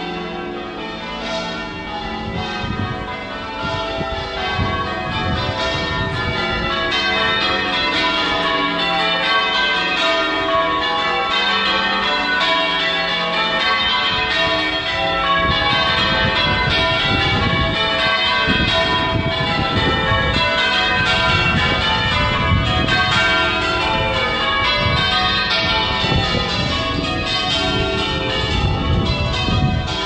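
Change ringing on a ring of eight church bells (tenor 15¾ cwt in F, cast by John Warner in 1858), heard from outside the church: a steady, rapid stream of bell strikes moving through changing rows, growing a little louder over the first several seconds.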